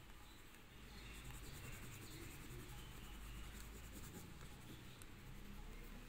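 Faint scratching of a yellow pastel stick rubbed back and forth across drawing paper, over a low steady hum.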